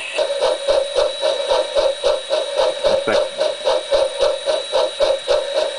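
Model train sound effect played through a small speaker mounted in a homemade balsa-wood enclosure: a steady mechanical rhythm of about seven even pulses a second, with a constant tone underneath.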